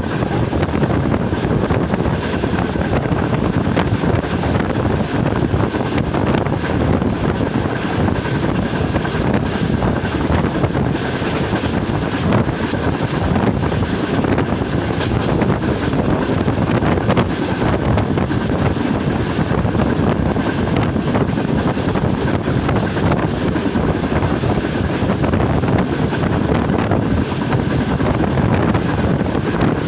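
Wind buffeting a microphone held outside a moving passenger train coach, over the steady rumble of the coach's wheels on the rails.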